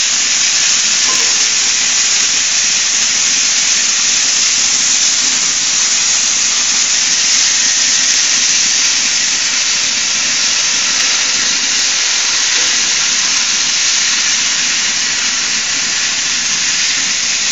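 Oxy-acetylene cutting torch on a CNC cutting table, a loud, steady hiss of the gas jet as it cuts, unbroken throughout.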